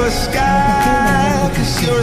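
Music: a song with a sung melody over a steady beat.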